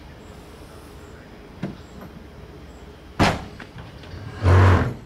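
A car boot lid slammed shut with one sharp bang about three seconds in. About a second later comes a louder, longer knock with a deep thud, under half a second long.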